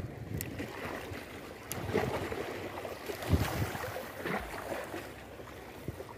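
Wind buffeting the microphone over small sea waves washing against shoreline rocks, with a few sharp clicks and a low knock about three seconds in from handling the rod and phone.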